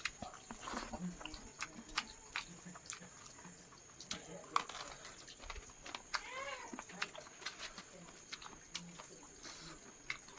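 Close-up eating sounds of chicken being chewed: repeated wet mouth smacks and sharp crunchy clicks at an uneven pace. About six and a half seconds in there is a short sound that rises and then falls in pitch.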